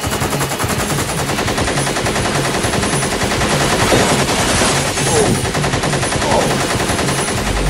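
Sound-effect machine-gun fire, rapid and continuous, with a few short falling whines partway through.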